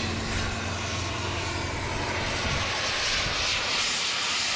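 Oxy-acetylene torch flame hissing against a steel truck frame rail, the hiss growing louder about halfway through. A steady low hum lies under it and fades about halfway.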